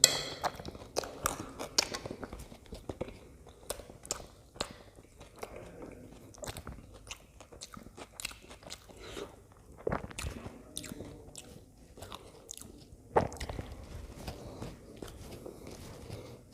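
Close-up eating of pav bhaji, buttered bread rolls with mashed vegetable curry: steady chewing with many small wet mouth clicks, and a few louder bites near the start and about 10 and 13 seconds in.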